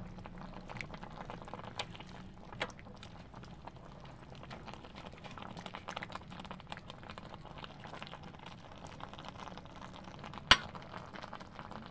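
Pot of pechay and cabbage broth bubbling at a simmer, a dense crackle of small pops over a steady low hum, with a few sharp clicks of metal tongs against the pot, the loudest near the end.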